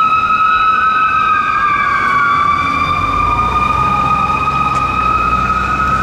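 Federal Q mechanical siren on a fire engine wailing loud and steady, its pitch dipping slightly and climbing back. A second siren tone slowly rises and falls beneath it, and a deep rumble joins about halfway.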